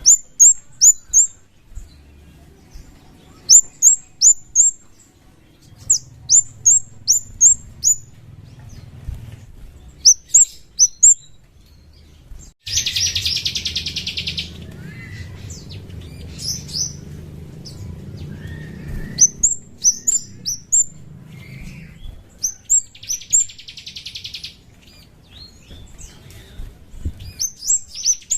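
Kemade songbird calling: high, sharp, downward-slurred chirps in quick runs of three or four, broken three times by a short buzzy rattling trill, about halfway through, shortly before the end and at the very end. It is a lure call recording, played to provoke other birds of its kind into singing.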